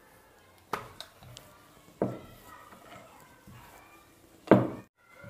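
Wooden rolling pin knocking on a wooden rolling board as a chapati is rolled out: three sharp knocks, the last the loudest.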